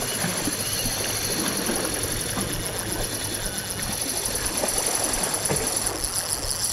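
Spinning reel whirring with a steady high whine as a kingfish pulls against the line, over the wash of the sea.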